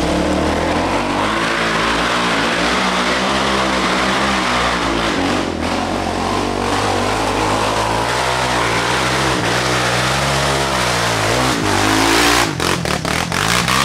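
ATV engine running hard under load, its revs rising and falling, with heavy wind noise across the microphone. Near the end comes a quick run of knocks and rattles.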